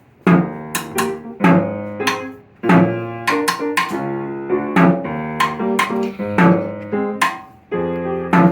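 Instrumental music of a band piece, starting on the beat just after a count-off: pitched notes with sharp attacks in a steady rhythm, with short breaks between phrases.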